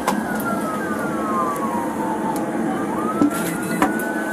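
Emergency vehicle siren wailing, its pitch sliding slowly down and then climbing back up, over a steady background hum. A couple of sharp clicks come at the start and near the end.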